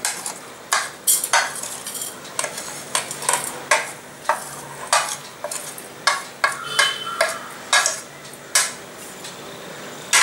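Metal spoon scraping spice powders off a plate into a stainless steel bowl: a dozen or so short, irregular scrapes and taps of metal on the plate and the bowl.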